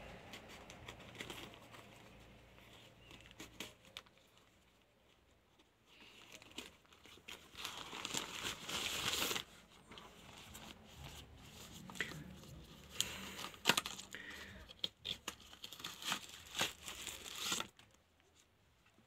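Unboxing noises: a plastic courier mailer being cut with scissors and torn open, then packaging rustling and crinkling as a cardboard product box and its wrapping are handled and opened. The crinkling is loudest about halfway through, with scattered clicks and taps later on.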